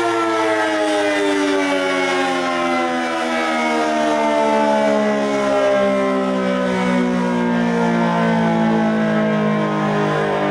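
ACA Allertor 125 outdoor warning siren sounding during a test: a loud, steady tone rich in overtones whose pitch slides slowly and smoothly downward.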